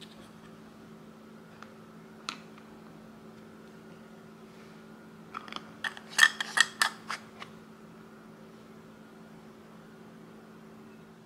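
Black screw cap being turned onto a small amber glass jar: a single click a couple of seconds in, then a quick run of sharp clicks and scrapes about halfway through as the cap is screwed down. A steady low hum runs underneath.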